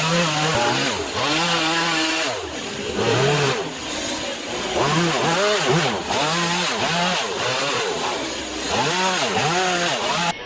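Stihl chainsaw carving wood, the two-stroke engine revving up and dropping back again and again as the cuts are made. It cuts off abruptly just before the end.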